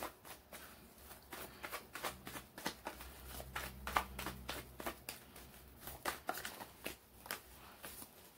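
Tarot deck being shuffled by hand to draw a card: a run of quick, irregular soft card clicks and riffles, with a faint low hum partway through.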